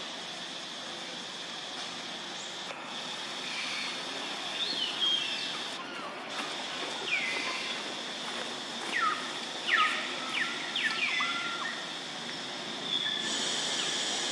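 Outdoor forest ambience: a steady high-pitched insect drone, with a string of short, falling chirping animal calls from about four to eleven seconds in. A brighter steady hiss takes over near the end.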